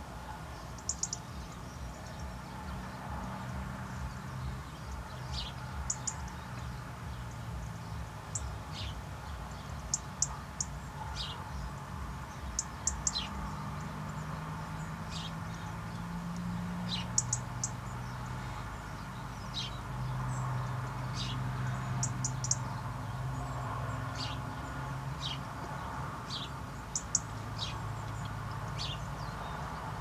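European robin and Spanish sparrow calling: short high ticks in quick twos and threes, and single short falling chirps, every second or two. A low steady hum lies under them.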